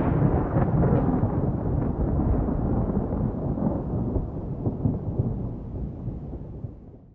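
A deep, noisy, thunder-like rumble that fades out slowly over several seconds to nothing, closing a music track.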